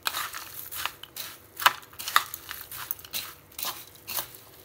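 Metal spoon stirring and tossing bhel puri of dry puffed rice, sev and chopped vegetables in a bowl: a crisp, crunchy rustle with sharp clinks of the spoon against the bowl at irregular intervals.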